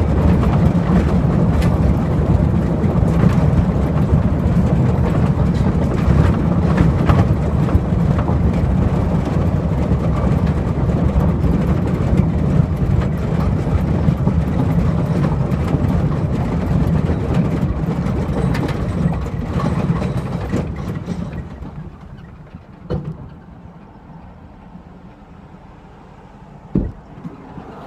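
A vehicle travelling fast on a gravel road: a heavy, steady rumble of tyres on gravel with wind noise, which dies down sharply about three-quarters of the way through as it slows. A few scattered knocks follow, with one sharp knock near the end.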